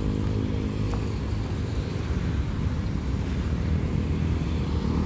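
Roadside traffic: a steady low rumble with the hum of passing motorbike and car engines, and one brief click about a second in.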